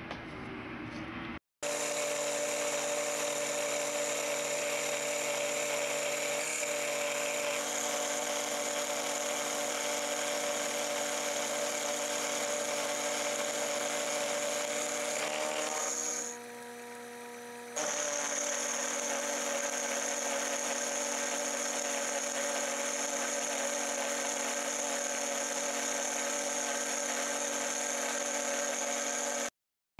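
Sherline mini mill running with a steady whine while an end mill squares up a steel block, briefly dropping quieter for about two seconds partway through.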